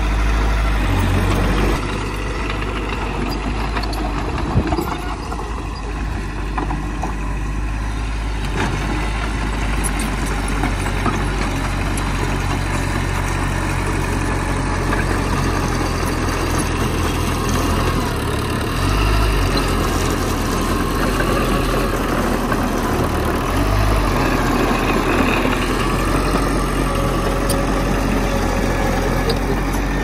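Heavy diesel earthmoving machinery running steadily: a bulldozer and dump trucks at work. The low engine note shifts a few times.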